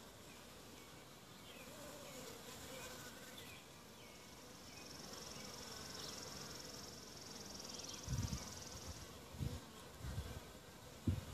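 Honeybees buzzing as they fly in and out around a hive entrance, their hum rising and falling as individual bees pass. A steady high-pitched whine runs for a few seconds mid-way, and from about eight seconds in several short, low rumbles come and go, louder than the buzzing.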